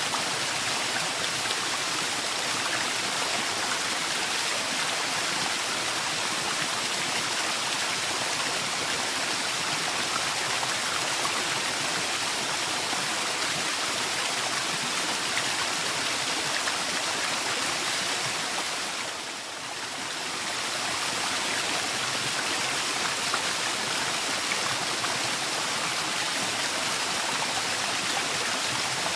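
Waterfall: water rushing in a steady, even roar of noise, dipping briefly in level about two-thirds of the way through before returning.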